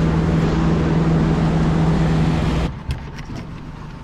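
Boat engine running steadily under way, with wind and water rushing over it; it cuts off abruptly a little over halfway through, leaving a quieter background with a few light clicks.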